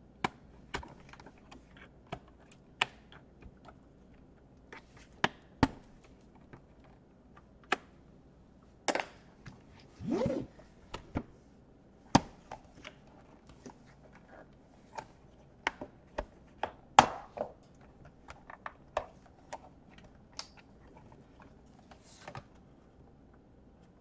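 Irregular clicks, taps and knocks of a plastic laptop case being pried at and handled on a table, scattered unevenly with a few louder knocks.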